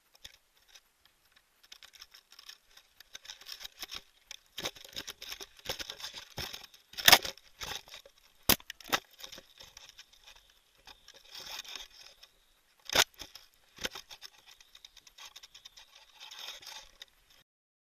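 Sparse crackling, scraping and rustling with a few sharp, louder clicks, the kind of handling and rubbing noise picked up by a balloon payload's onboard camera as the payload moves. It cuts off suddenly near the end.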